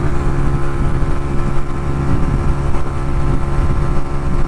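Suzuki RV125 VanVan's 125cc single-cylinder engine running steadily at road speed while the bike rides behind a lorry.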